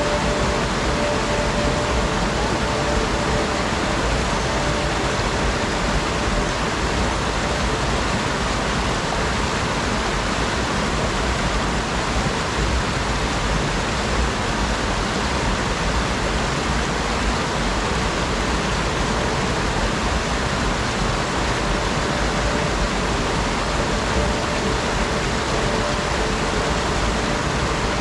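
Small mountain stream rushing steadily over boulders and little cascades.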